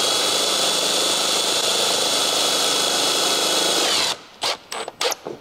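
Milwaukee cordless impact driver with a PH2 bit running at speed, driving a self-tapping pan-head screw through the carbon grille into the bumper. Its steady high whine holds for about four seconds, then winds down. A few light knocks follow near the end.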